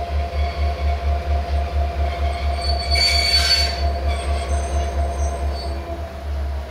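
Passenger coaches creeping during shunting, their wheels squealing on the rails: a steady squeal that sags in pitch as they slow, with a sharper high squeal about three seconds in. Underneath runs a low rhythmic throb, about four or five beats a second.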